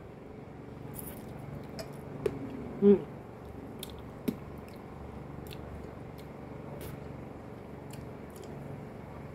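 Close-up eating sounds: soft chewing and small mouth and fork clicks, with a brief vocal murmur about three seconds in.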